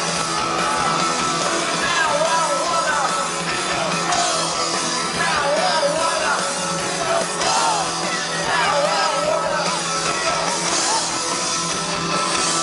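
Live punk rock band playing loud, with a wavering sung and yelled vocal over the band, heard from inside the crowd.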